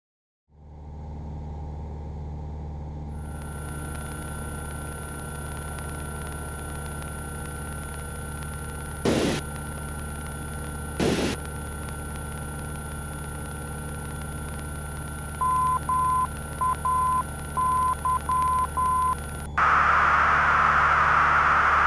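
Piper PA-28's engine droning steadily in the cabin, fading in about half a second in, with two short clicks in the middle. Near the end a run of short and long beeps at one steady pitch sounds over it, then a loud hiss of radio static cuts in.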